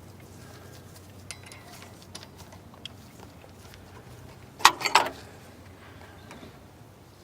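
A few faint clicks, then a quick cluster of loud metallic clinks about four and a half seconds in: metal hand tools knocking against each other and the alternator pulley as the locking tools and spanner are set in place.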